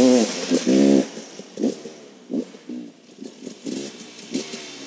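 A 2017 KTM EXC 300 TPI's fuel-injected two-stroke single-cylinder engine with its stock exhaust. It is revved in quick throttle blips for about the first second, then drops back to a low, irregular idle.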